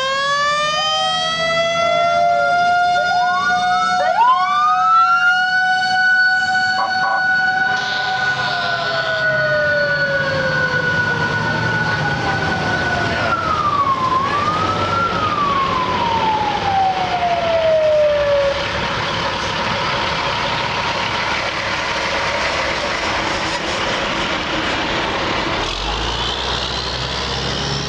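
Mechanical fire siren winding up to a steady wail, winding up again, dipping and recovering once, then coasting down in pitch until it dies out about two-thirds of the way in. After that comes the steady noise of passing trucks.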